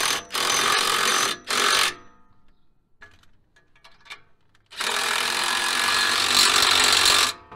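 Cordless impact driver hammering nuts tight on the exhaust pipe flange. It runs in two short bursts at the start, then in one longer burst of about two and a half seconds near the end.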